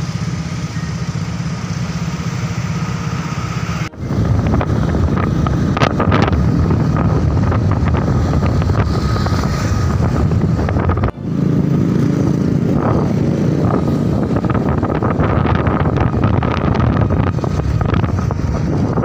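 Road noise from riding on a motorcycle: a small engine running under a rush of wind on the microphone. It breaks off abruptly twice, about 4 and 11 seconds in, and resumes.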